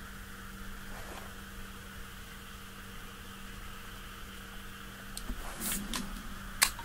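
Steady low hum with a faint hiss of background noise. Near the end come a few brief rustles and knocks of handling, then one sharp click.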